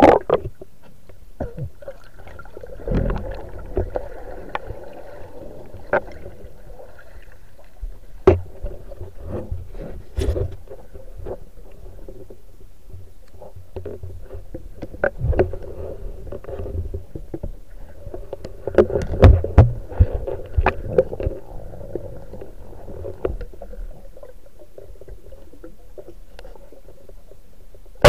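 Muffled underwater sound picked up by a camera held below the surface of a river: a steady dull water rush, broken by scattered clicks and knocks. A cluster of louder thumps comes about two-thirds of the way through.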